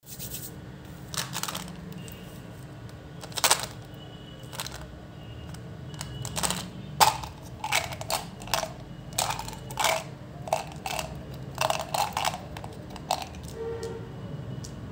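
A plastic Mentos Pure Fresh gum bottle and its hard-coated gum pellets being handled: sharp plastic clicks and rattles, a few scattered at first, then about two a second from around six seconds in, as the pellets are shaken and tipped out into a hand.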